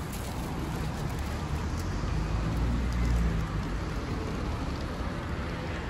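Steady outdoor street noise: a low traffic rumble under an even hiss, a little louder about halfway through.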